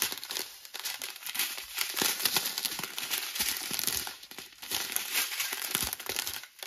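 Crinkling of thin clear plastic strip packets of diamond-painting drills as they are handled and flipped over, a continuous crackle of small clicks that drops away briefly near the end.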